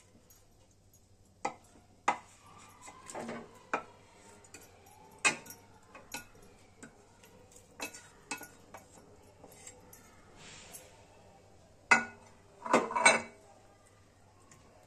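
Spatula knocking and scraping against a bowl and a curry pan while pieces of marinated mackerel are pushed into the thick gravy: scattered sharp clicks and knocks, loudest in a quick cluster near the end.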